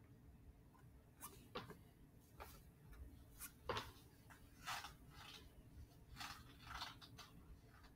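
Near silence: room tone with a few faint, brief noises scattered through it.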